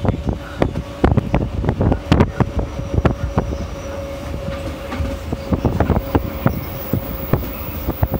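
Rhaetian Railway narrow-gauge train running over the rails: a low rumble with frequent irregular clicks and knocks from the wheels and track, and a steady tone underneath that fades out near the end.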